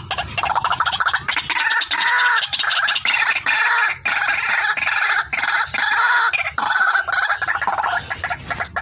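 Female white-breasted waterhen (ruak-ruak) calling: a fast, unbroken run of repeated harsh notes, the call used as a lure to draw the birds in.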